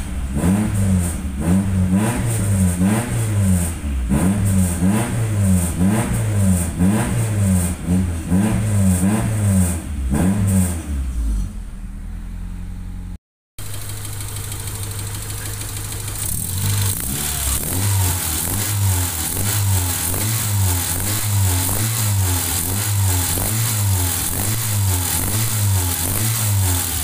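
Honda Accord 2.3-litre four-cylinder engine blipped repeatedly from the driver's seat through a newly fitted 4-2-1 header and a muffler with no resonator, its pitch rising and falling about once a second for some eleven seconds. After a short break it runs on at lower revs with smaller, regular rises and falls.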